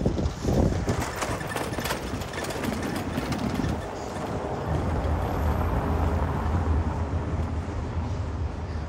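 Street ambience. Wind buffets the microphone in the first second or so, then a steady low rumble of engine traffic builds from about halfway through.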